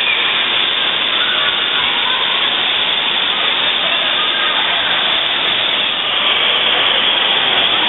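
Steady, loud rushing noise of an indoor water park: running and splashing water.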